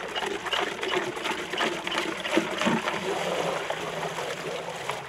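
Water sloshing, splashing and gurgling in a barrel as it is stirred vigorously by hand with a wooden stick: a biodynamic preparation being churned into a vortex.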